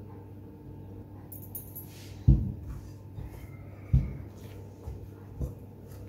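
Bread dough being gathered and kneaded by hand in a glass mixing bowl, with a few dull thumps, the loudest about two and four seconds in.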